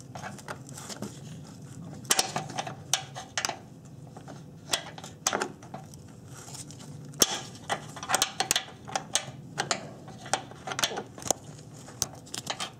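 Irregular metal clicks and clinks of a box-end wrench working the rusty 10 mm radiator fan shroud bolts, coming in short clusters.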